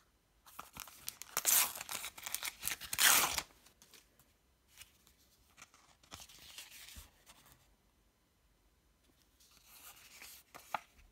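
A Star Wars Universe sticker packet being torn open: a loud ripping of the wrapper for about three seconds. After that comes fainter, patchy rustling as the stickers from it are leafed through.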